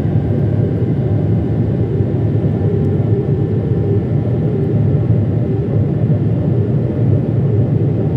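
Cabin noise of a Boeing 777 climbing out after take-off: a steady, loud rumble of its GE90 turbofan engines, heard from inside the cabin, with faint steady whining tones above it.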